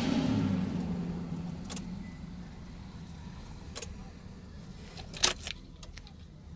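A vehicle passing, swelling and then fading away over the first two seconds, followed by scattered sharp clicks and a jingle of keys. The loudest clicks come about five seconds in.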